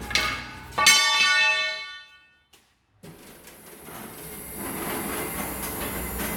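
A sharp metallic clang about a second in that rings on with several clear tones, fading over about a second, as a piece of steel is struck. After a short dead gap comes a steady hiss that slowly grows louder.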